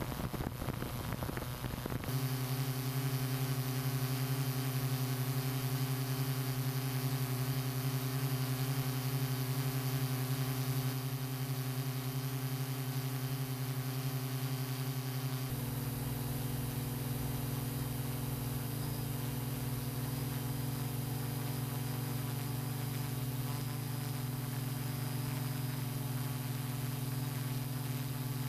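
Hexacopter drone's electric motors and propellers humming steadily, heard from on board. The pitch of the hum shifts abruptly about two seconds in and again about halfway through.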